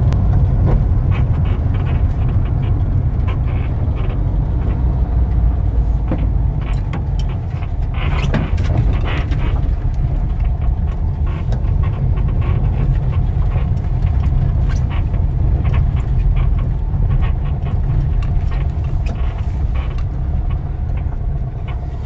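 Old Volkswagen Westfalia bus driving along, its engine and road noise making a steady low rumble with scattered light clicks and rattles.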